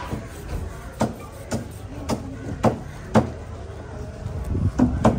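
Large curved fish knife cutting down through a thick chunk of sailfish on a wooden board: a run of sharp knocks and cuts about twice a second, coming quicker near the end.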